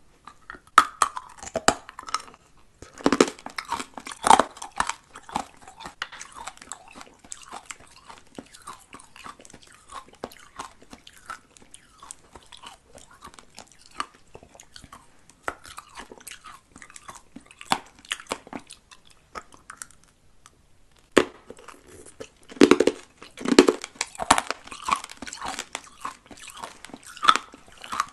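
Close-miked chewing and crunching of bulb-shaped candies bitten off a string: a steady run of small crackly bites, with louder bursts of crunching a few seconds in and again about three-quarters of the way through.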